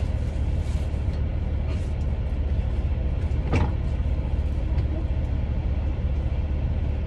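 Steady low mechanical rumble with no break, and one short, sharp, higher sound about three and a half seconds in.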